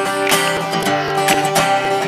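Acoustic guitar being strummed, with chords ringing and about four strums a second.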